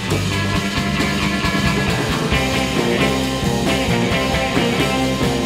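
Rock music with guitar, playing steadily as a soundtrack.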